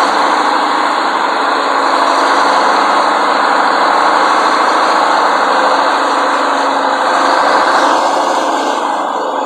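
Supercharged GM Detroit inline-six two-stroke diesel of a 1954 LeTourneau-Westinghouse Tournarocker running steadily with a thick, loud drone, easing off a little near the end.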